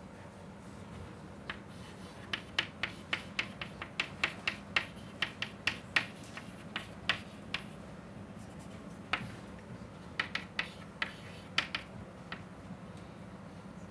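Chalk tapping and clicking against a chalkboard as equations are written: a quick series of sharp taps for several seconds, a short pause, then a second series.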